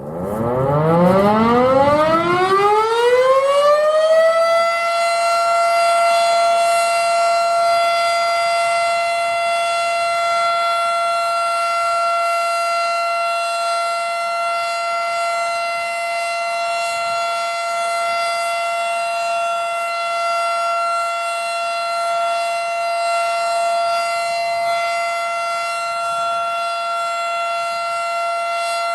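Federal Signal Model 5 mechanical outdoor warning siren winding up: its pitch climbs steadily for about four and a half seconds, then holds a loud, steady tone, the alert signal of a siren test.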